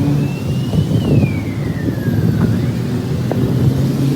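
Motor vehicle engine running with a steady low hum over dense low rumbling noise, and a high whine that rises, peaks about a second in, then slowly falls away.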